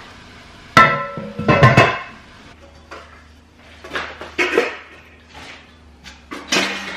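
Metal cookware clanking: stainless steel bowls and a stock pot knocked together and set down as they are stacked. There are several sharp clanks that ring briefly, the loudest cluster about a second in, more around four seconds and one near the end.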